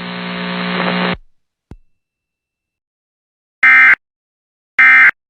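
A steady buzzing hum that slowly grows louder, then cuts off about a second in. After a pause come two short, loud bursts of Emergency Alert System end-of-message data tones, about a second apart.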